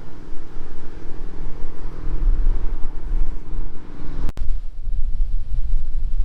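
Wind buffeting the microphone with a heavy low rumble. Under it, an engine hums steadily for the first four seconds or so, then drops away after a brief break in the sound.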